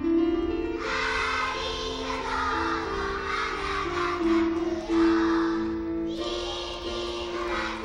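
Children's choir singing a song together in long held notes that step from pitch to pitch, accompanied on grand piano.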